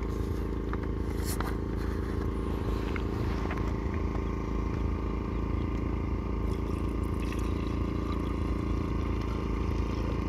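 A steady low mechanical hum, like an engine running, throughout. Over it come a few light clicks and the handling of a plastic mileage-test bottle as its cap is opened and petrol is poured into it from another plastic bottle.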